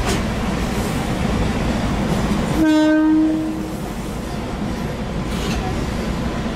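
Steady rumble of a train, with one short train-horn blast about two and a half seconds in: a single held note, fading after about a second.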